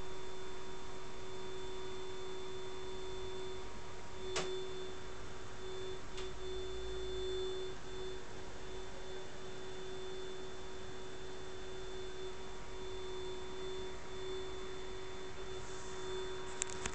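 A steady hum at one pitch over a background hiss, with a sharp click about four seconds in.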